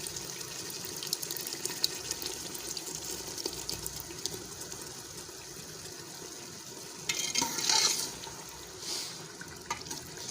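Beef koftas frying in oil and spiced masala in a pot: a steady sizzle with fine crackling, swelling louder for about a second around seven seconds in.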